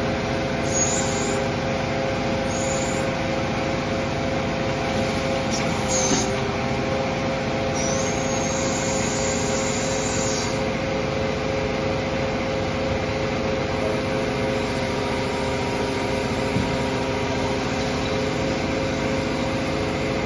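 Palfinger truck-mounted knuckle-boom crane's hydraulic system running steadily off the truck's engine, a constant hum with a steady whine. Brief high hisses come and go about a second in, near 3 s, near 6 s, and for a couple of seconds from about 8 s in.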